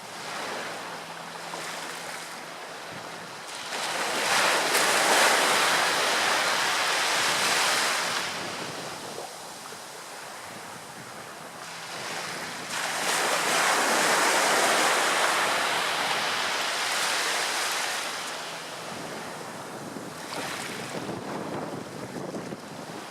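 Ocean surf: two waves break and wash in, one about four seconds in and one about twelve seconds in, each a loud rush lasting several seconds over a steady lower hiss of surf.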